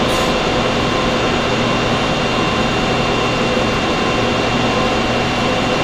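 Steady fan-type noise: an even hum and hiss with a few faint steady tones, unchanging.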